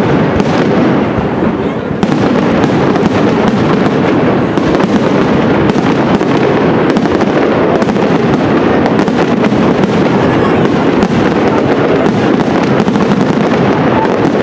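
Castillo aerial fireworks display in full barrage: a dense, unbroken rattle of shell bursts and crackling stars with many overlapping bangs, growing denser about two seconds in.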